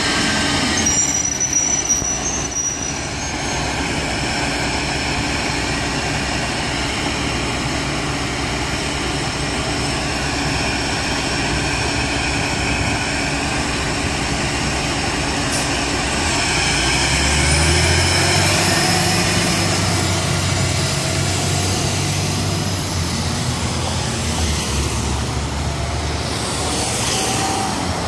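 Orion VII Next Generation CNG transit bus pulling away from a stop and driving off, its natural-gas engine and drivetrain running steadily as it goes. Passing car traffic joins it, with a heavier rumble of cars going by close in the second half.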